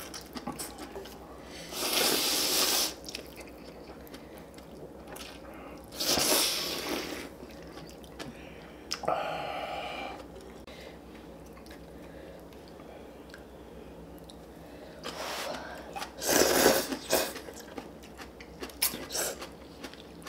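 Slurping of ramen noodles, in three loud bursts about two, six and sixteen seconds in, with chewing and small clicks in between.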